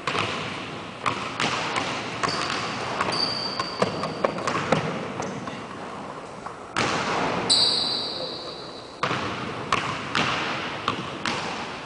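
Basketballs bouncing on a hardwood gym floor: irregular dribbles and thuds that echo in the large hall, with a couple of short high sneaker squeaks.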